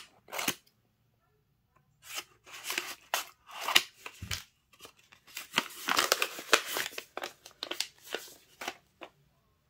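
Paper rustling and crinkling as a small kraft-paper envelope of washi tape is handled and opened, in a run of irregular scratchy bursts that are loudest around six to seven seconds in, with a dull knock a little after four seconds.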